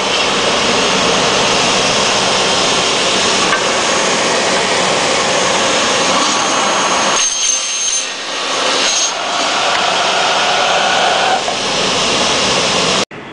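16-inch automatic miter saw's circular blade cutting an aluminium extrusion, a loud continuous sawing noise. About seven seconds in it eases for a couple of seconds, with the blade's thinner high ring showing through, then the cutting resumes before the sound cuts off suddenly near the end.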